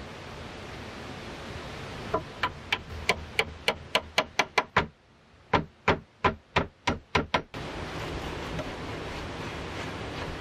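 Hammer driving wooden pegs into a wooden door latch: a run of sharp wooden knocks, about three a second, starting about two seconds in with a short pause midway. A steady rushing hiss lies underneath.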